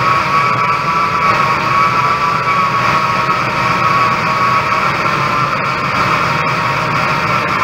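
2006 Ford Expedition's V8 engine running steadily, with a high, even whine over it that fades after about four seconds.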